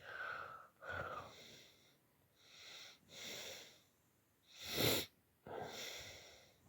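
A person breathing close to the microphone: about six noisy breaths in and out with short gaps, the loudest about five seconds in.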